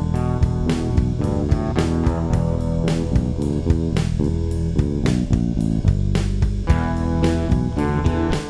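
Background music: guitar and bass with a steady drum beat.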